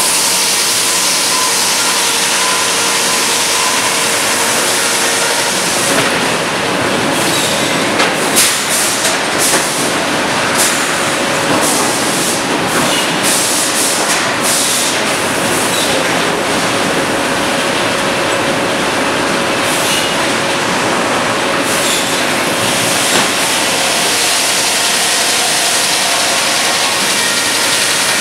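Sawmill machinery around a log carriage running: a loud, steady din with a couple of steady tones, and a run of clanks and knocks from about six to fifteen seconds in.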